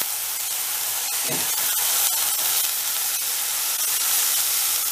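Beef burger patty sizzling over high heat in a non-stick frying pan: a steady hiss with scattered small crackles and pops.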